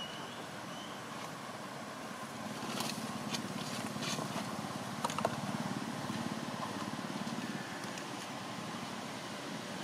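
Steady outdoor background noise, a low rumble like distant traffic, growing a little louder in the middle, with a few soft clicks and rustles about three to five seconds in.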